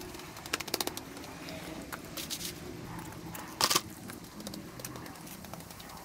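Pigeon cooing in low, repeated phrases. A quick run of sharp clicks comes about half a second in, and a short, loud burst of noise comes around three and a half seconds.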